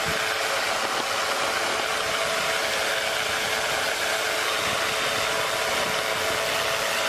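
Pegasus flex-wing microlight trike's pusher engine and propeller running steadily in flight at eased-back power, with wind rushing over the microphone.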